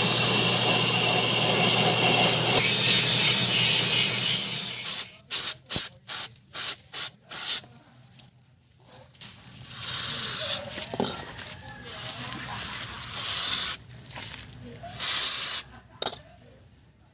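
A loud steady mechanical noise with a high whine, which stops after about five seconds. Then come about seven short hissing blasts of pressurised spray in quick succession and three longer hissing blasts.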